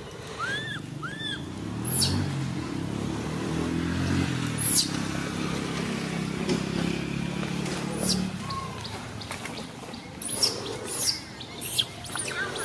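Baby macaque giving short, high, arched squeaking cries, twice near the start and again later. A string of brief shrill squeals comes near the end. A low droning hum runs underneath for most of the middle.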